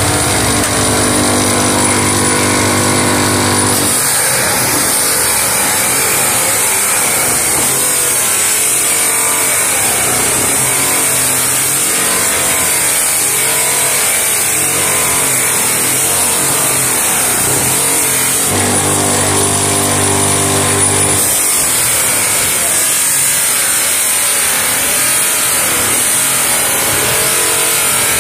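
Electric bench buffing machine running, its white buffing wheel polishing the plastic lens of an oxidised, foggy car headlight. The motor gives a steady hum for the first few seconds and again around twenty seconds in; in between, the pitch wavers.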